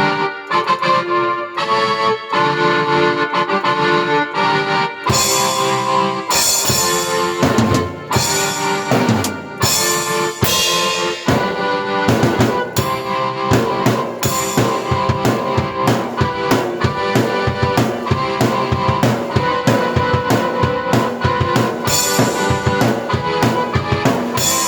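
Keyboard chords played alone, then about five seconds in a drum kit comes in with a fill and carries on with a steady beat of bass drum, snare and cymbals under the keyboard, both played by one performer at once.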